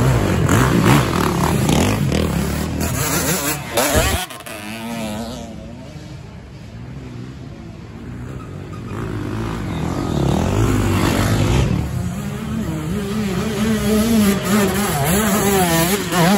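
Off-road dirt bike engines revving hard under load up a steep dirt hill climb, the note rising and falling with the throttle. The sound drops away sharply about four seconds in and builds up loud again after about ten seconds.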